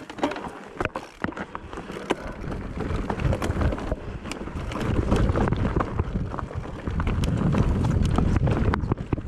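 Irregular clicks and knocks of movement over a rough trail, with wind buffeting the microphone, heavier from about halfway through.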